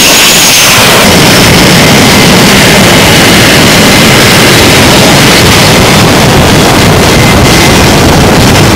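F/A-18 jet engines running at close range: a loud, steady rush of jet noise with a high turbine whine over it.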